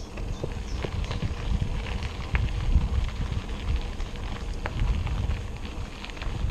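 Wind rumbling on the microphone of a moving bicycle, with scattered crackles and clicks from the tyres rolling over a rough surface.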